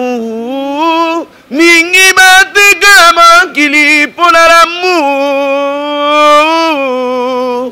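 A man singing a cappella into a handheld microphone: a slow melody of long held, gliding notes with brief breaths between phrases. The longest note comes near the end, and the voice then stops abruptly.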